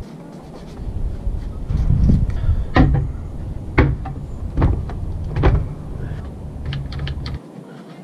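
Pallet-wood boards knocking and clattering as they are handled and laid against one another, with four sharp knocks in the middle and a few lighter taps after. A low rumble sits underneath and cuts off near the end.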